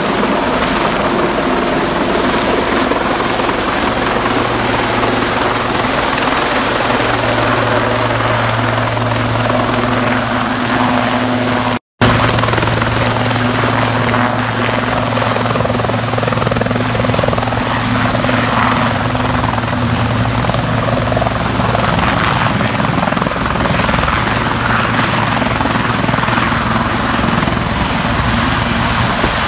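Medical helicopter's turbine engines and rotors running loud and steady as it hovers low and sets down on a helipad, with a thin high turbine whine that sinks slightly in pitch near the end. The sound cuts out for an instant about twelve seconds in.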